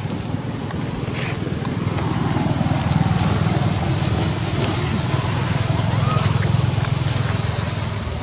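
Low engine rumble of a passing vehicle, growing louder a couple of seconds in and easing off near the end.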